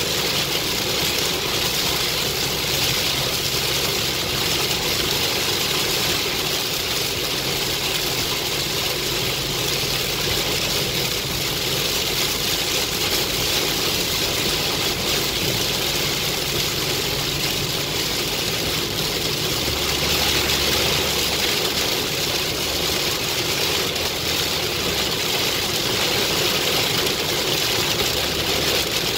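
Heavy rain hitting a moving car and tyres on a soaked road, a steady dense hiss heard from inside the cabin, with a low engine and road rumble underneath.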